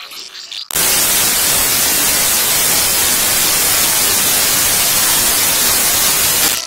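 Loud, even white-noise static hiss that cuts in abruptly about a second in and cuts off just as suddenly near the end.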